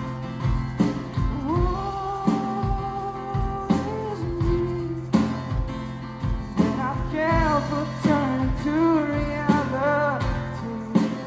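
Live band music: a male lead voice sings long held, gliding notes over a strummed acoustic guitar and a steady drum beat.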